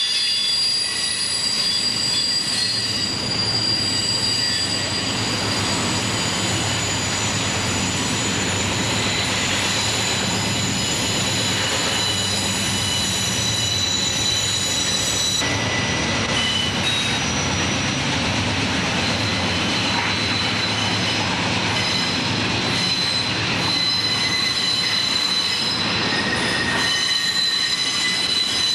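Intermodal freight train of flatcars loaded with highway trailers rolling past close by: a steady rumble of wheels on the rails under continuous high-pitched squealing from the wheels.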